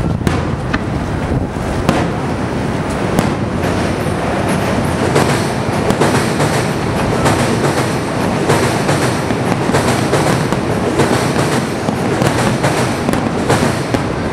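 Aerial firework shells bursting in quick succession: a dense, unbroken barrage of booms and crackles with no pause between them.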